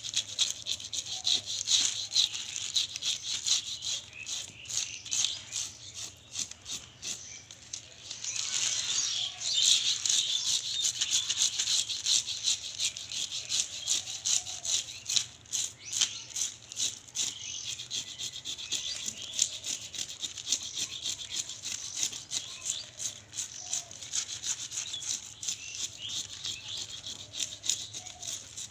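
A fish being scaled by hand: quick, rasping scraping strokes, several a second, as the blade strips scales off the skin, with a busier, louder spell about eight seconds in.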